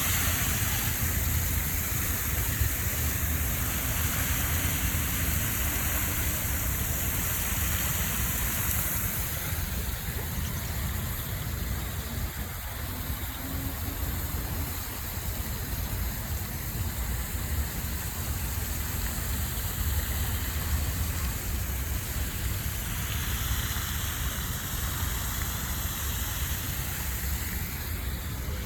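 Steady rushing noise with a low rumble underneath, unbroken throughout.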